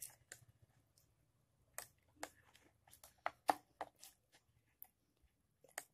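Button of a Microsoft optical mouse clicking a dozen or so times at irregular spacing, short sharp clicks; the repaired click button is now working.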